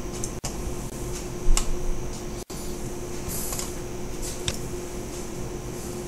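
Steady hum and hiss of a running computer's fan, with a few light clicks and a soft thump about a second and a half in.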